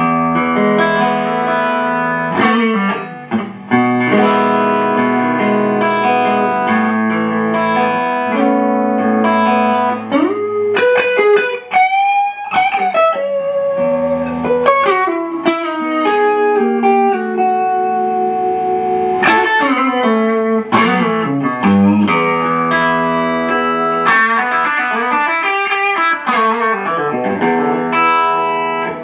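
Electric guitar (Macmull Stinger) played through a Strymon OB.1 optical compressor and clean boost, both engaged, into a Marshall JCM 2000 DSL amp. Sustained chords alternate with single-note lines that carry string bends.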